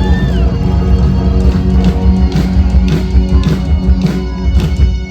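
Rock band music: electric guitar over bass and drums, with drum hits running through the second half.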